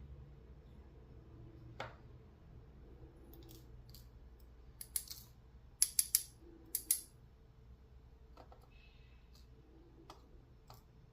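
Small metal parts of an American 5560 brass padlock clicking and clinking as the lock is taken apart. Scattered light clicks, with a quick run of sharp, bright clinks midway.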